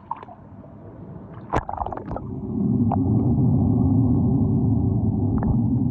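Splashing and gurgling as the camera enters the pool water. About two and a half seconds in, this gives way to the steady, muffled low rumble heard by a microphone underwater.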